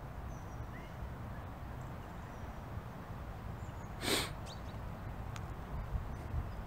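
Wind buffeting the microphone as a steady low rumble, with one short hissing burst about four seconds in.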